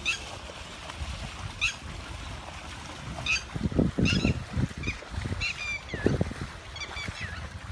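Water buffaloes splashing as they wade out of shallow lake water, loudest about halfway through, while birds call in short, repeated chirps.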